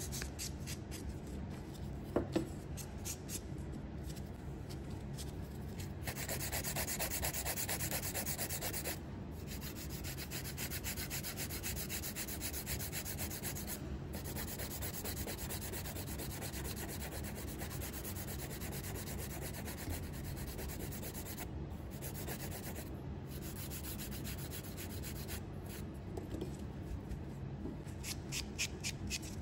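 Sponge nail buffer rubbed quickly back and forth across a natural fingernail, a fast, even scratchy rubbing with a few short breaks, as the nail surface is roughened in preparation for gel. There is a sharp click about two seconds in.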